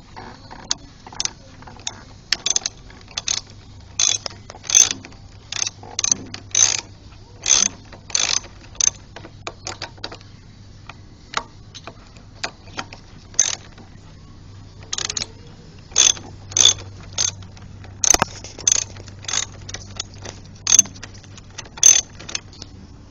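Socket ratchet wrench clicking in runs of a few clicks a second as it is swung back and forth to back out a bolt, with short pauses about halfway through.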